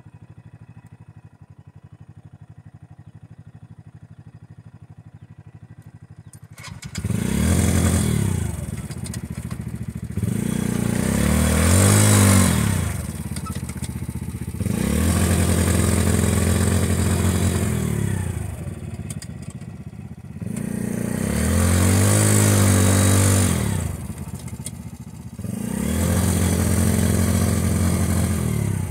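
Small youth ATV engine idling quietly, then revved hard five times in long surges that rise and fall in pitch while the wheels spin in deep mud, the machine bogged and trying to drive out.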